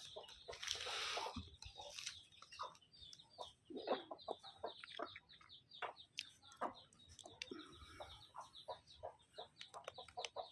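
Chickens clucking softly: a long run of short, quick clucks from hens. A short burst of noise comes about a second in.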